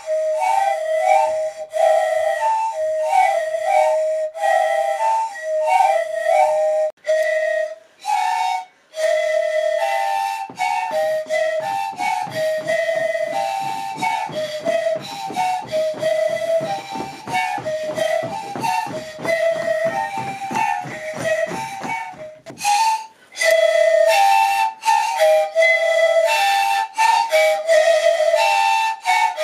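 An ensemble of chipsan, Komi multi-pipe panflutes with each player blowing one pipe, playing short breathy notes that interlock between a few pitches, in the style called islödlöm. Through the middle the notes turn into a fast, even pulsing before the interlocking melody comes back.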